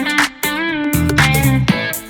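Background music: an upbeat track led by electric guitar, with a bending guitar note, bass and drum hits.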